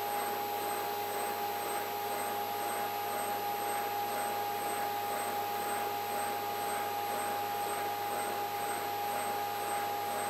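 Electric torsion testing machine running a sinusoidal cyclic test at about one twist cycle a second: a steady motor-drive whine with a faint pulse about twice a second as the shaft twists back and forth.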